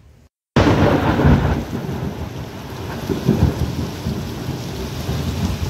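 Heavy monsoon rain pouring down with deep rumbles of thunder, starting suddenly about half a second in. The rumble swells twice, around a second in and again past the three-second mark.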